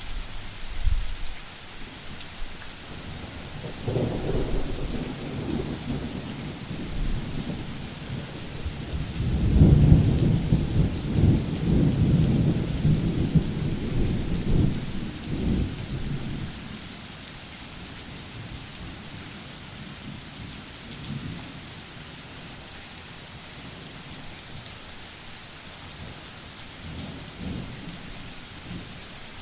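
Steady rain falling in a thunderstorm, with rolls of thunder: a short rumble about a second in, another about four seconds in, and a long, loud roll of thunder from about nine to sixteen seconds in, then fainter distant rumbles near the end.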